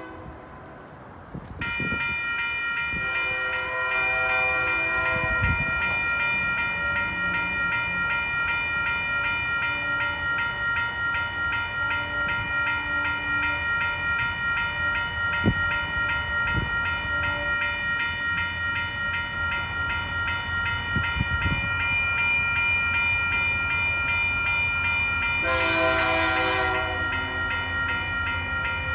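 Railroad grade-crossing warning bell ringing steadily once the signals activate about two seconds in. An approaching train sounds its horn: a fainter blast a few seconds in and a louder one near the end, as the low rumble of the train grows.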